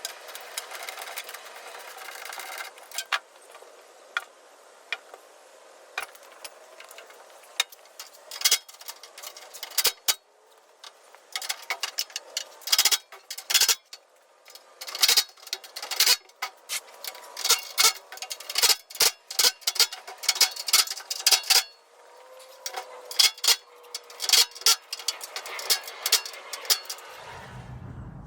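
Metal parts of a steel tool cart and hand tools clicking and clattering in quick irregular bursts while the cart is being put together and its fasteners tightened.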